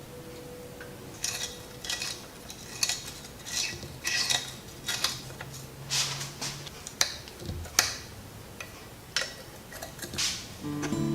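Metal tools and bicycle parts clinking and scraping in about a dozen irregular short strokes.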